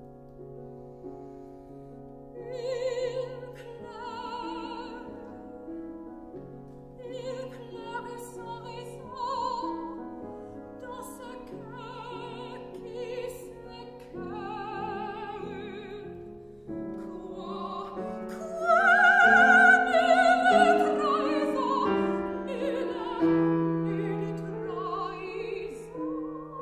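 A classical female singer with wide vibrato sings a French art song, accompanied by a grand piano. The voice swells to its loudest and highest about two-thirds of the way through, then falls back.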